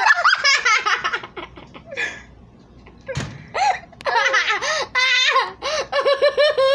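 Children laughing hard in bursts, with a quick run of ha-ha-ha near the end. A short sharp noise comes about three seconds in.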